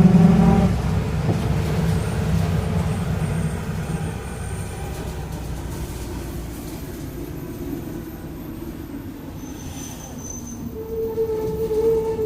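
Mercedes-Benz OF-1722M city bus heard from inside while moving: the engine note fades over the first few seconds as the bus eases off, and about eleven seconds in a steady whine rises from the drivetrain. The growling, whining rear differential is the sign of worn differential gearing.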